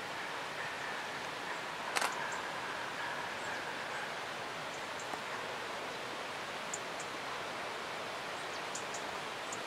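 Steady background hiss, with one sharp click about two seconds in from a photo camera's shutter and a few faint ticks later on.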